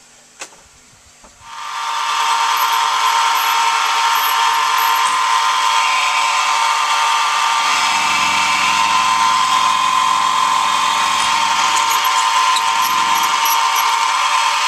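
Milling machine spindle motor starting up about a second in and then running steadily with a high whine. A lower hum joins in twice in the second half.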